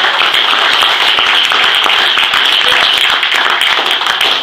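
Loud, steady applause from a roomful of people clapping.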